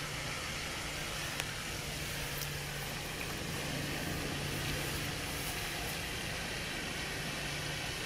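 Steady background hum and hiss, even throughout, with one faint click about one and a half seconds in.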